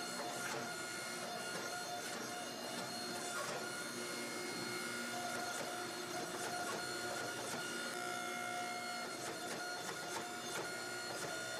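Hydraulic forging press running with a steady whine from its pump, the pitch held but swelling a little at times as the flat dies squeeze a glowing billet of forge-welded steel ball bearings, with a few faint clicks.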